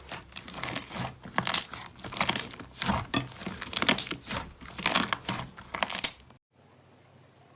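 Slime being squeezed and worked by hand, making a run of short, sharp crackling squishes about two a second. It cuts off suddenly about six seconds in.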